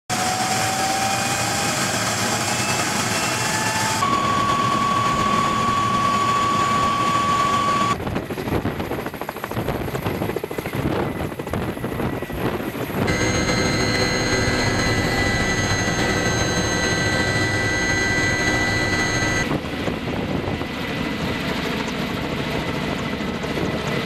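Kamov Ka-32 coaxial-rotor helicopter running: steady turbine whine and rotor noise, heard both inside the cabin and from outside as it lifts off and flies overhead. The sound changes abruptly several times as the shots cut.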